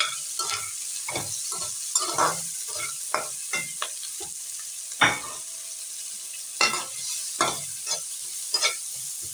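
Chopped vegetables being stir-fried in a metal kadai: a steady sizzle of hot oil under a metal spatula scraping and clattering against the pan in irregular strokes, the loudest about five seconds in.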